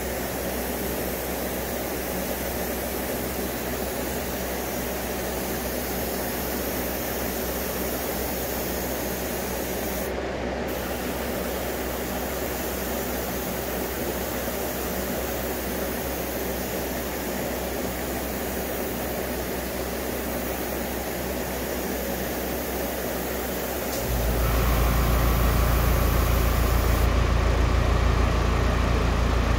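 Iwata Eclipse airbrush with a .5 mm needle setup hissing steadily as it sprays, with a short break about ten seconds in. About 24 seconds in, a motor starts running with a louder low hum, and the airbrush hiss stops shortly after.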